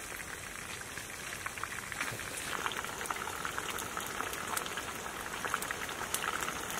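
Steady sizzling crackle with many small sharp pops, like food frying, growing a little louder about two and a half seconds in.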